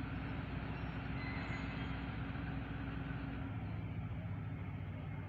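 Diesel-electric locomotive engine running with a steady low hum as the train pulls away; one of its low tones drops out about three and a half seconds in.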